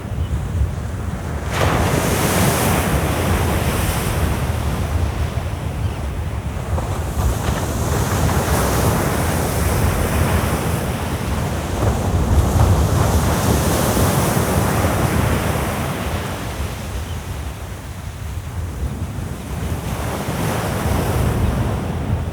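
Surf breaking on a beach, swelling and easing every few seconds, with wind buffeting the microphone.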